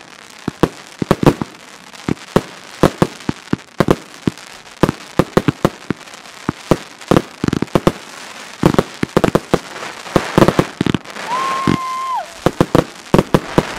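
Fireworks firing in a barrage: a fast, irregular run of sharp bangs from shots launching and bursting overhead, growing denser about ten seconds in. Near the end a held tone of about a second sounds over the bangs and dips in pitch as it ends.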